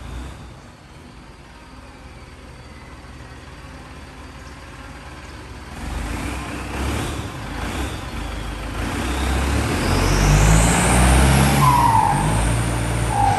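Ford 6610 tractor's turbocharged four-cylinder diesel running as the tractor drives, growing louder from about six seconds in and loudest near the end, with a couple of brief squeals.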